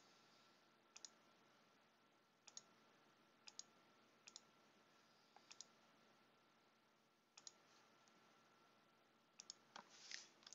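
Faint computer mouse clicks, about eight of them a second or so apart, several as quick double clicks. Just before the end, fast keyboard typing starts.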